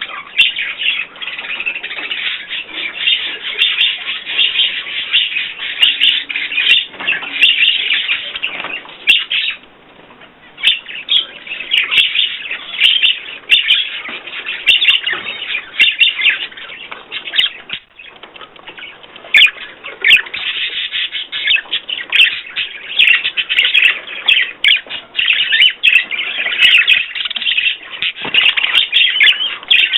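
Small pet birds kept indoors, chirping and twittering busily and almost without pause, with brief lulls about a third of the way in and a little past halfway.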